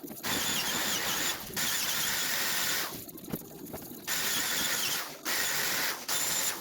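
A power tool running in several long bursts with short pauses between them, a high whine over a loud hiss.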